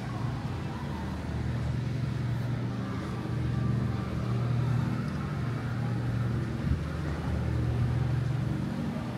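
A steady low engine-like rumble that swells and eases every second or so, with a single short knock about seven seconds in.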